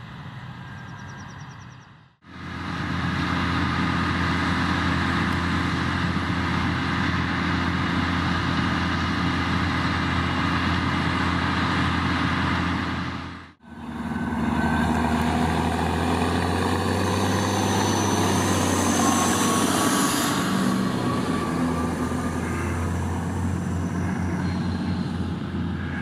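Diesel engines of harvest machinery running steadily, in separate shots that cut off abruptly about two seconds in and again midway. In the second half a tractor hauling a loaded grain trailer drives past, with a whine that rises slowly in pitch as it goes by.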